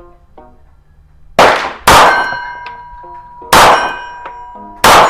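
Four 9mm pistol shots from a compensated MAC DS9 C 2011, with steel targets ringing with a clear metallic tone after the hits. The first two shots come about half a second apart, the last two over a second apart each.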